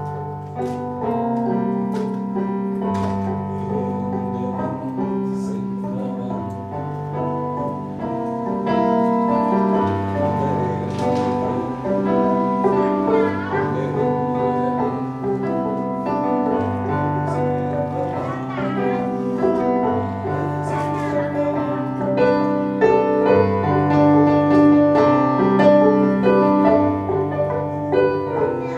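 Piano and double bass playing a slow piece together: held chords over a bass line that moves to a new note every second or so.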